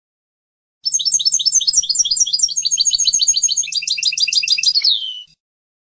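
European goldfinch singing: one phrase of rapid, high twittering notes starting about a second in, closing with a falling slurred note near the end.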